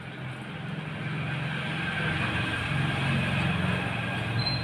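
Low rumble of a passing vehicle that grows louder, with a thin, steady high squeal starting near the end.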